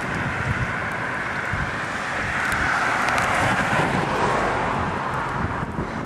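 Strong gusty wind rushing and buffeting the microphone, building about two seconds in and easing off near the end, as the wind picks up hard under a rotating storm cloud.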